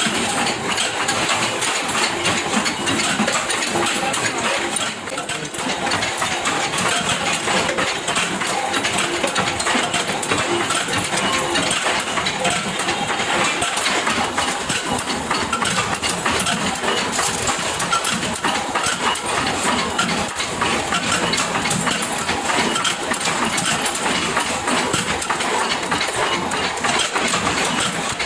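Continuous clatter of factory machinery, with many rapid metallic clinks running on without a break.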